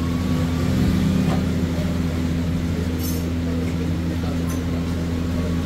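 Steady low mechanical hum with a light metallic clink about three seconds in.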